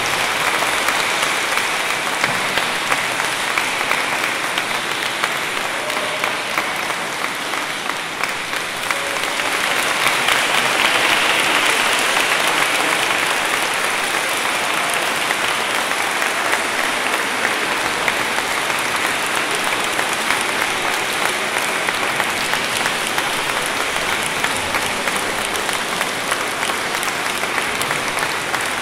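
Sustained audience applause in a church, growing louder about ten seconds in and then holding steady.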